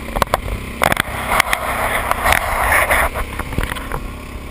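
Small duck boat's outboard motor running under way, with water rushing past the hull, loudest between about one and three seconds in. Scattered sharp knocks throughout.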